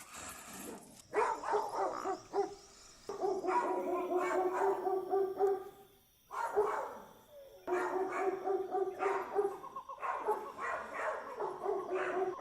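Dog barking and yelping in bursts, some calls drawn out into longer cries, with short pauses between the bursts.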